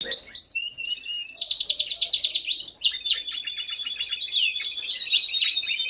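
Male Norwich canary singing a continuous run of rapid trills and chirps, with a short break just before three seconds in. Cocks singing hard like this are in breeding condition, fit and ready to breed.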